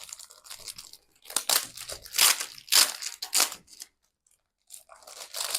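Album packaging being torn open and crinkled by hand, a run of loud rustling, tearing bursts with a short pause about four seconds in.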